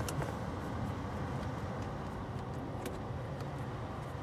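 Car heater/AC blower fan running with a steady low rush of air, with a few sharp clicks from the climate-control buttons and knobs being worked.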